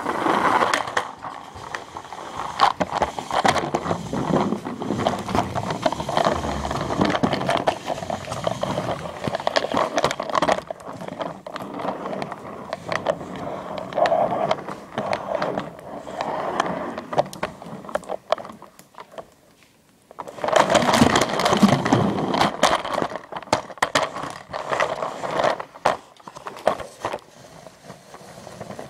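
Rattling and scraping of something travelling along a homemade wooden toy roller-coaster track, many quick clicks as it goes over the slat rungs, with a brief pause about twenty seconds in.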